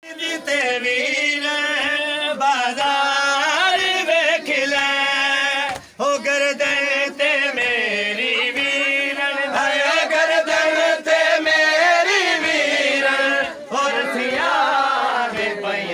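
Men's voices chanting a Punjabi noha, a mourning lament, in long, drawn-out melodic lines, with a run of low thuds beneath them.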